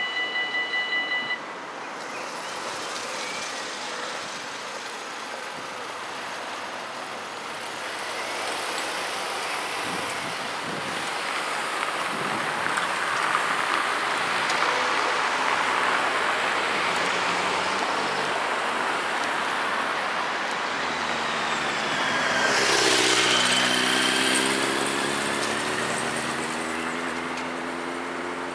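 Level-crossing warning bells ringing, cutting off about a second in at the end of the warning. Then road traffic drives over the crossing, and later one car passes close, its engine note falling as it goes by.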